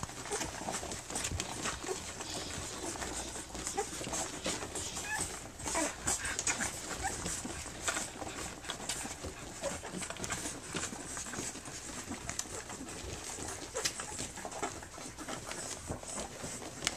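Three-week-old Standard Schnauzer puppies nursing: a busy run of small suckling clicks and smacks, with brief high little squeaks scattered through.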